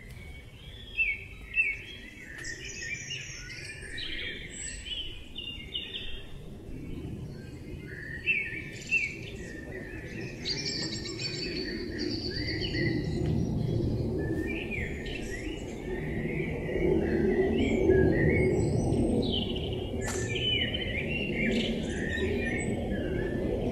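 Several birds singing and calling together in a busy run of chirps and trills. A low rumbling noise underneath grows louder through the second half.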